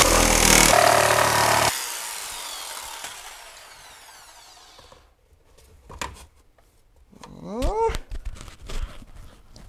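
A corded electric power saw cutting a laminate floor plank. It switches off a couple of seconds in, and its motor winds down over the next few seconds. After that come a few light knocks and a short rising-and-falling squeak as the cut plank is handled and laid down.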